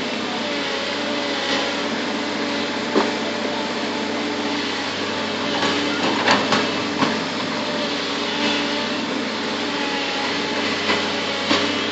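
A bulldozer's motor running steadily, with a few sharp knocks now and then.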